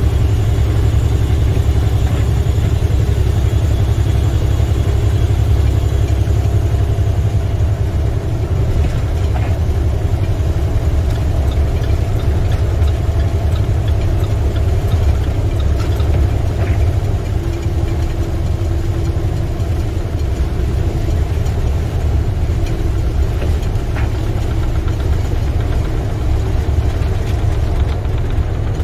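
Steady low drone of an International semi-truck's MaxxForce 13 diesel engine and road noise, heard inside the cab while cruising at highway speed.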